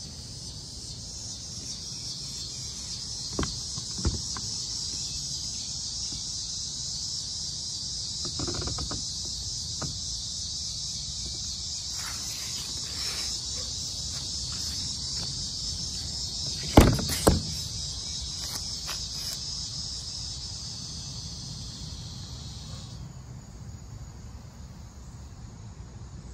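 Steady high-pitched chirring of crickets outdoors, which stops about 23 s in. Over it come a few scattered plastic clicks and knocks as the kayak's rudder and fins are handled, the loudest a pair of knocks about 17 s in.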